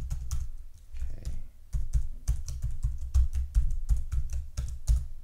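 Typing on a computer keyboard while entering an email address and password: a quick, irregular run of key clicks, each with a dull thud. There is a brief pause about a second and a half in, then the typing picks up again faster.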